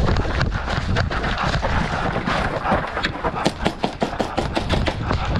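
Airsoft guns firing: sharp snapping shots, sparse at first, then coming about five a second in the second half, over a steady low rumble of movement and wind on the microphone.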